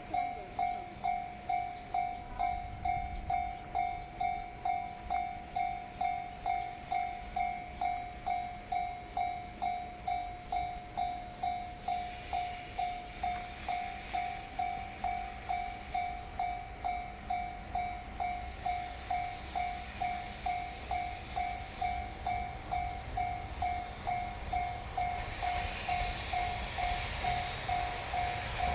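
Japanese level-crossing warning bell dinging steadily, about two strikes a second. In the last few seconds a rising rushing noise builds as the approaching electric locomotive nears the crossing.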